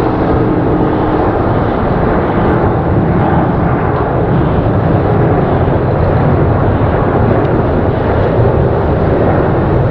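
Jet engines of a Boeing 737-800 at takeoff thrust as it climbs out: a steady, deep jet rumble that holds at one level throughout.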